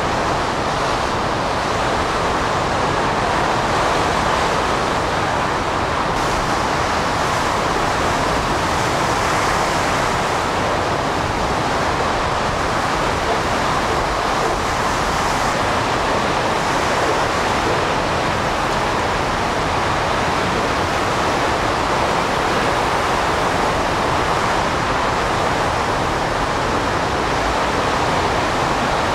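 Hurricane-force wind driving heavy rain and spray, a loud, steady rush of noise that never lets up.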